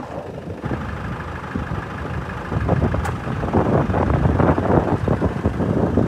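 Land Rover Defender engine idling steadily. From about two and a half seconds in, footsteps crunch on gravel over it.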